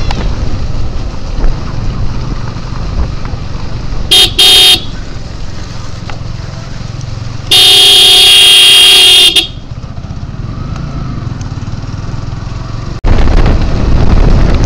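Horn honking from a motorcycle on the move: two quick toots, then one long blast of about two seconds, over steady engine and road noise. Near the end the sound jumps to louder wind rush and engine noise at higher speed.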